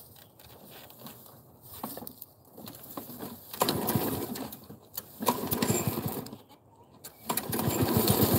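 Walk-behind gas lawn mower being pull-started: two short bursts of cranking from the recoil starter, and on the next pull, near the end, the engine catches and keeps running.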